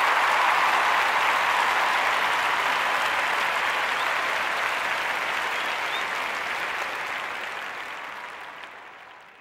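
Crowd applauding with steady, dense clapping that fades out over the last few seconds.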